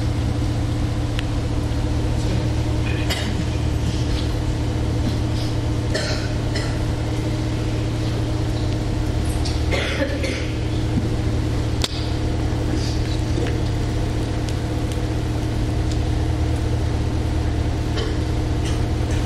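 Steady low hum with scattered light clicks and taps, and one sharp tick about twelve seconds in.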